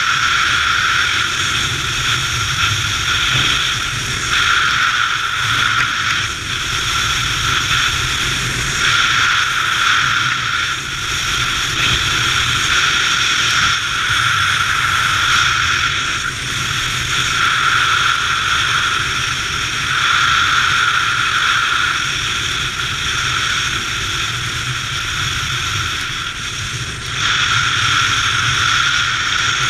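Loud rush of airflow buffeting an action camera's microphone during a fast, low speedflying run, swelling and easing every few seconds as the speed changes.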